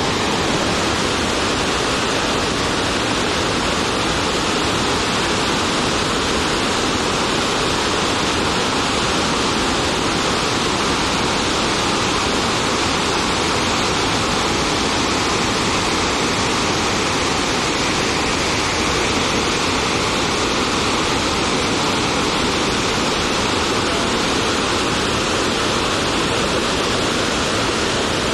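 Iguaçu Falls' huge cascades pouring into the gorge: a loud, steady roar of falling water that does not change.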